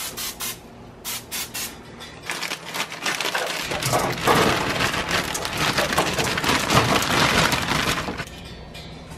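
A few short bursts of aerosol cooking spray onto a foil-lined sheet pan. Then, from about two seconds in, broccoli florets pour out of a bag onto the foil in a dense crackling, rattling patter that stops suddenly about a second before the end.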